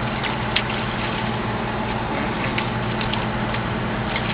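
Excavator's diesel engine running steadily, with a few short faint clicks scattered over it.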